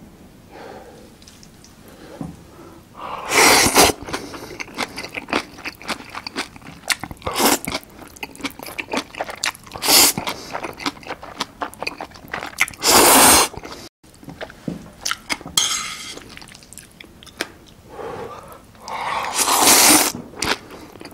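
Close-miked eating of jjapaghetti black-bean noodles with kimchi: about five loud noodle slurps a few seconds apart, with wet chewing and the crunch of kimchi between them.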